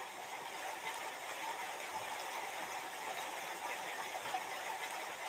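Steady background hiss of room tone, with no distinct sounds standing out.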